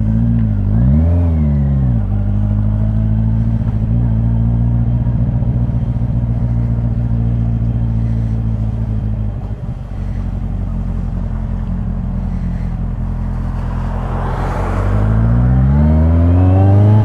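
Yamaha XJR1200's air-cooled inline-four engine running under way on the road. It revs up and back down about a second in, holds a steady cruise with a brief drop near the middle, then rises in pitch as it accelerates near the end.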